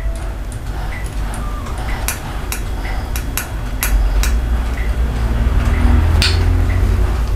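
Serrated knife sawing sideways through a soft sponge cake on a wire cooling rack: a low rubbing rumble with irregular light metallic clicks, the sharpest about six seconds in.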